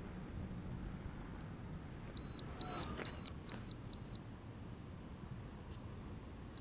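A run of five short, high electronic beeps, about two a second, starting about two seconds in, over a faint low rumble.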